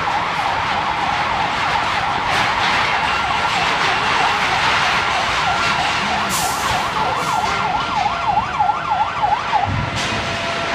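Emergency vehicle siren sweeping rapidly up and down, quickening into a fast yelp before it breaks off near the end, over a loud, steady noise background.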